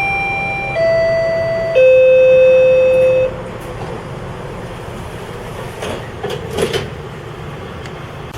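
GO Transit train door-closing chime: three descending tones, each lower and longer than the last, with the final low note the loudest, signalling that the doors are closing. After it comes a steady background rumble with a few faint brief sounds.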